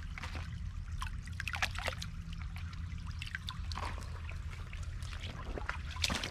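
Shallow creek water trickling, with scattered small splashes.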